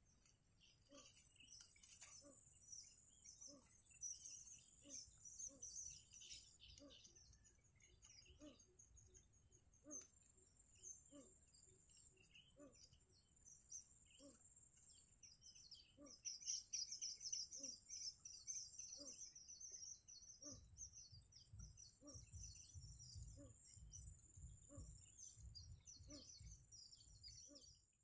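Marsh insects trilling in a high steady buzz that comes and goes in bouts of a few seconds, with scattered short bird chirps and a soft low pip repeating about once a second.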